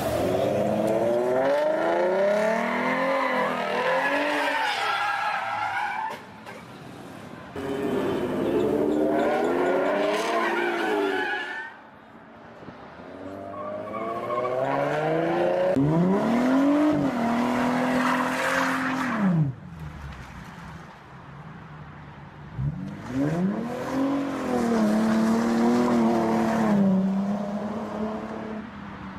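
Ford Mustang engine revving hard with its tyres squealing as it slides and spins, in four long bursts. The pitch climbs, holds and drops with the revs each time.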